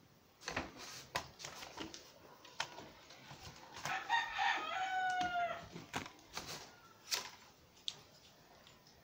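A rooster crows once, about four seconds in, a single drawn-out call that sags in pitch at the end. Around it come scattered clicks and knocks of a Yunteng tripod's legs and leg locks being handled.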